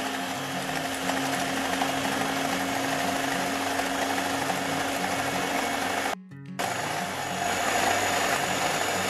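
Electric hand mixer with twin wire beaters whipping instant coffee, sugar and hot water in a glass bowl at low speed: a steady motor whir. It cuts out for a moment about six seconds in, then carries on.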